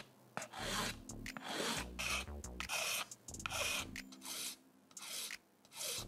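Small metal needle file rasping over the black 3D-pen plastic surface of a polymer clay sculpture, in about nine short back-and-forth strokes.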